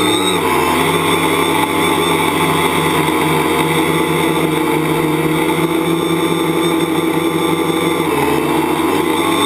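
Tricopter's electric motors and propellers running steadily in flight, a loud even drone whose pitch shifts a little about eight seconds in as the throttle changes.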